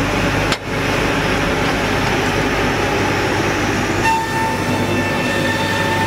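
Circular-saw sawmill line machinery running with a loud, steady mechanical noise. About four seconds in, a high whine with several tones joins it.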